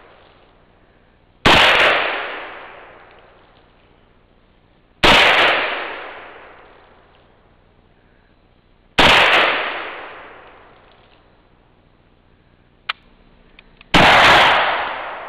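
Four rifle shots a few seconds apart, each ringing out and dying away over two to three seconds. The last comes from a black-powder long rifle, with a short sharp click about a second before it.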